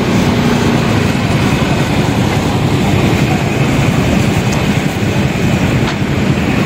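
Loud, steady mechanical rumble with a rattling clatter at a ferry's loading ramp, from the docked ferry's machinery and the steel walkway.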